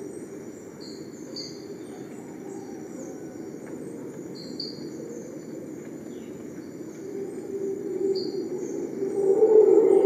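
Rainforest ambience: a steady high insect drone with a bird repeating short two-note chirps every few seconds. Beneath them a low drone swells louder in the last few seconds.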